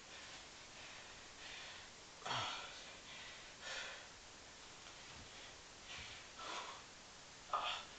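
A man breathing hard from exertion during a long set of one-leg (pistol) squats: several short, sharp breaths, one every second or two, the loudest near the end.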